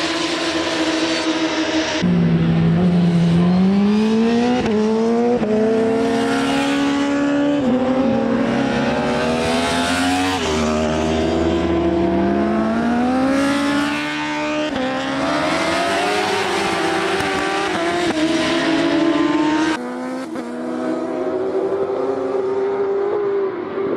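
Several racing superbike engines accelerating hard. Their pitch climbs again and again and drops back at each upshift as the bikes go past. The sound jumps abruptly a few times.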